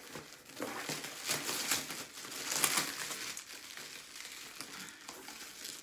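Plastic bubble wrap crinkling and crackling as it is pulled out of a cardboard shipping box. It is loudest in the first half, then softer.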